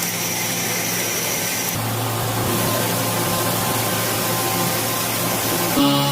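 A machine running steadily with a hissing noise and a low hum, its sound changing abruptly about two seconds in and again near the end.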